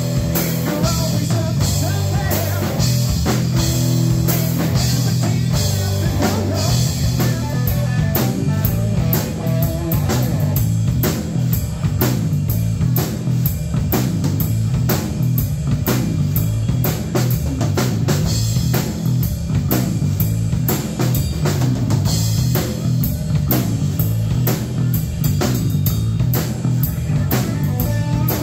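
Live rock band playing: electric guitar, electric bass and drum kit keeping a steady beat, with the cymbals coming through more strongly from about eight seconds in.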